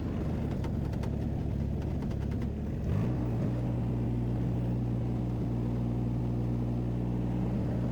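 Mini skid steer loader's engine running under load while its forestry mulcher chews into small bushes, with a run of sharp cracks and snaps in the first couple of seconds. About three seconds in, the engine note changes and settles into a steady drone.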